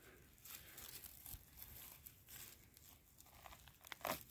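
Faint rustling and crunching of footsteps through forest-floor litter, with a few short, sharper crackles near the end.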